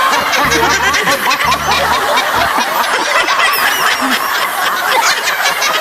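Laughter sound effect: many snickering, chuckling laughs layered over one another at once. A low thumping beat pulses about once a second and stops about two seconds in.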